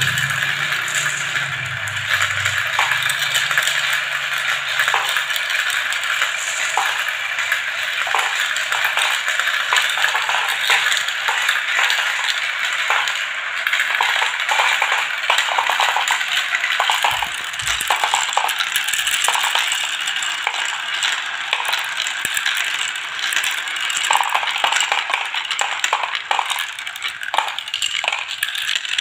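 Dozens of small plastic balls rolling around the transparent plastic funnel bowls of a toy marble run and dropping through its tubes: a steady, dense rattle with many sharp clicks.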